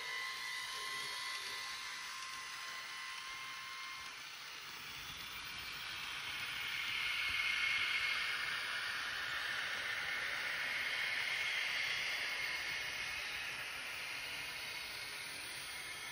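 Märklin mini-club Z-scale model trains running on the layout. A faint high-pitched whine of steady tones stops about four seconds in, then a hiss swells to its loudest around the middle and eases off toward the end.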